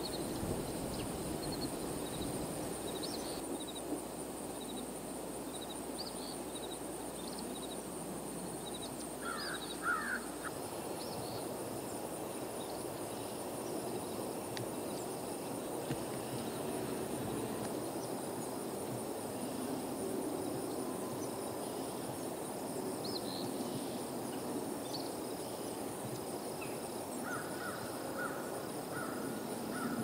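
Outdoor meadow ambience: a steady high-pitched hum, small birds chirping now and then, and crow-like caws about ten seconds in.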